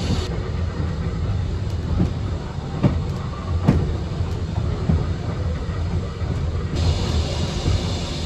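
Wooden-bodied railway carriage running along the track, heard from inside: a steady low rumble with several knocks of the wheels over rail joints, about one a second.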